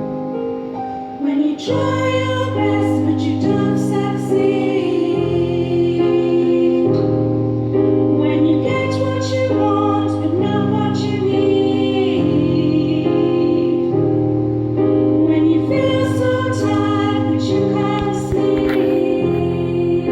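Women's choir singing in unison and harmony with piano accompaniment. The piano plays alone for about the first second and a half before the voices come in.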